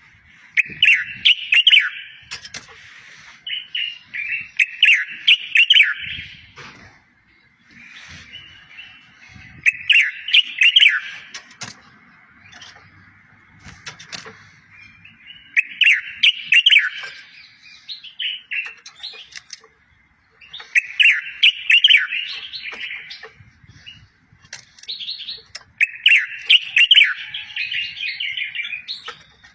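A songbird singing a short, fast chirping song phrase, repeated six times with a pause of a few seconds between phrases, with high thin ticking notes above each phrase. It is a recorded tutor song played for goldfinches and canaries to learn.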